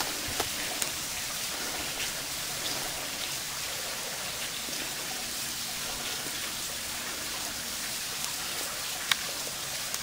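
Steady hiss of water falling and splashing at a partly frozen waterfall, with a few faint ticks and a sharper one about nine seconds in.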